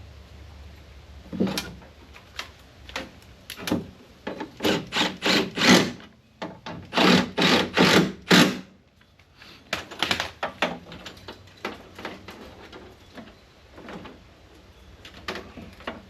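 Clicks and knocks from jumper-lead clips and hands working on a car's power window motor inside the door. Scattered clicks give way to two quick runs of sharp knocks a few seconds in.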